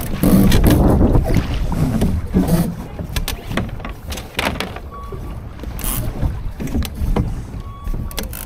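Water splashing and rushing against a small sailing dinghy's hull, with wind on the microphone and scattered knocks.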